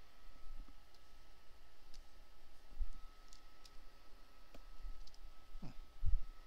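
Computer mouse clicking now and then, a few sharp separate clicks, as points of a lasso selection are placed in Photoshop. A faint steady high whine runs underneath, and a low thump comes about six seconds in.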